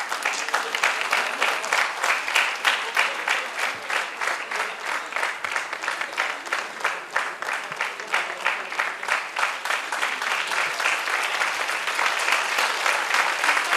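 A large audience applauding: dense, even clapping that breaks out suddenly and keeps going.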